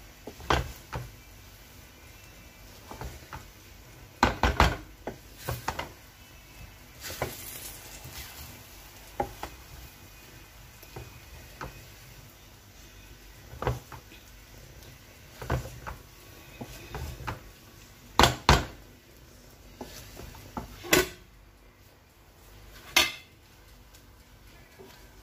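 Wooden spatula turning cooked rice in a large aluminium pot, knocking and scraping against the pot's sides and rim in irregular sharp clicks, a few of them coming in quick pairs.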